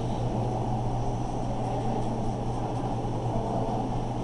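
Steady low hum with an even rushing background noise beneath it, unchanging throughout.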